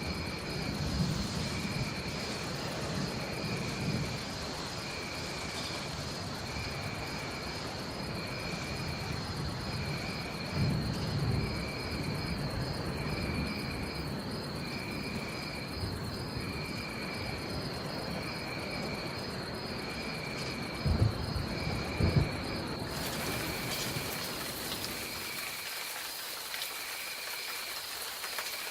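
Steady rain with rolling thunder. Low rumbles come and go, and two louder thunder claps come about three quarters through. Over the rain runs a high, steady insect trill and a short chirping call repeated about once a second.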